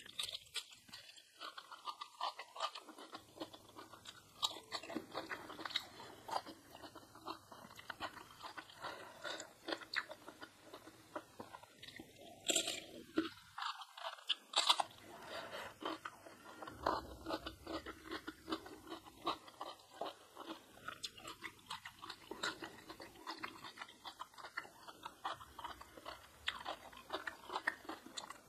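Close-miked eating sounds: steady chewing with many sharp, irregular crunches of crisp food.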